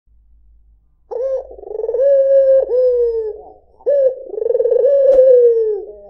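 White Barbary dove (puter) cooing: a series of long, rolling coos starting about a second in, each phrase sliding slightly down in pitch, with a short break partway through.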